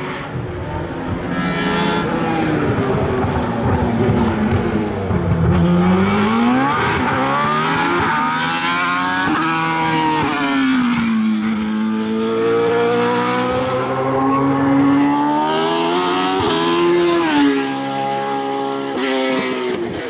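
Reynard K-14 Formula 3000 racing car's engine revving hard under full throttle, its pitch climbing and dropping again and again as the car accelerates, lifts and accelerates again.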